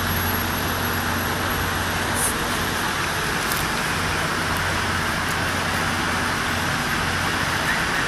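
Steady outdoor background noise: a continuous rushing haze over a low hum, with no distinct event standing out.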